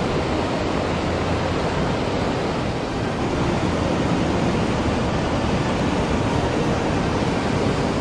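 Mountain stream water rushing steadily.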